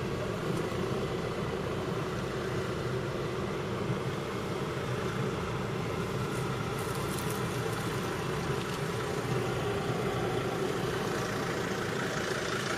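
Dodge Sprinter 2500 van's engine running steadily at low speed, heard from inside the cabin.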